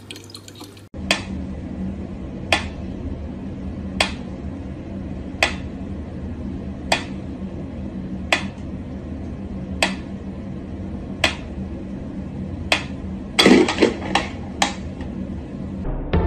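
Mechanical pyramid metronome ticking slowly and evenly, about one tick every second and a half, over a steady low hum. Around thirteen seconds in, a louder clatter of several quick knocks breaks the rhythm.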